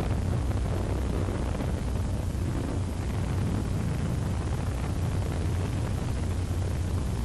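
Steady low rumble with hiss over it, unchanging throughout.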